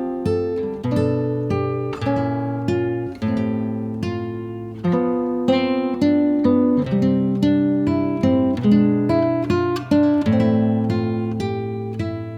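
Background music: acoustic guitar plucking and strumming chords, a steady run of ringing notes that each fade after the attack.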